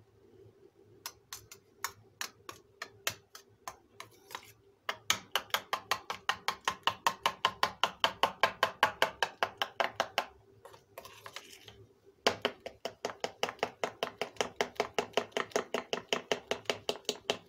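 A metal spoon beating yogurt in a stainless steel bowl, clinking against the bowl in quick strokes of about five a second. There are a few scattered clinks at first, then two long runs of beating with a pause of about two seconds between them.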